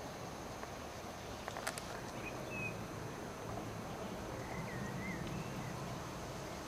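Quiet outdoor marsh ambience: a steady background hiss with a few faint, short bird chirps and a couple of sharp clicks about one and a half seconds in.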